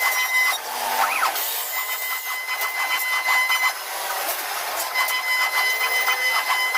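CNC wood router running: a steady high whine that drops out briefly twice and comes back, over a hiss and rapid rattling ticks, with a short rising-and-falling pitch glide about a second in.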